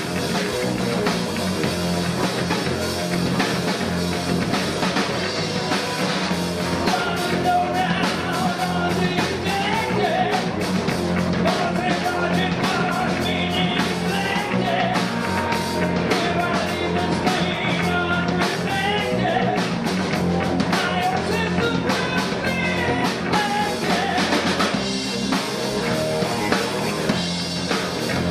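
Live rock band playing: electric guitars, bass and drum kit, with a singer's voice over much of it.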